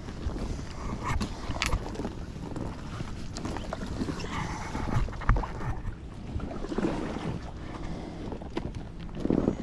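Kayak paddle strokes splashing and dragging through water thick with moss and marsh vegetation, swelling about every two and a half seconds, with a few sharp knocks.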